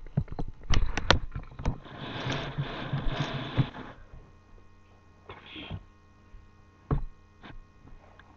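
Handling noise from a webcam being moved and repositioned: several sharp knocks, a stretch of rustling about two seconds in, and a couple more knocks near the end, over a faint steady electrical hum.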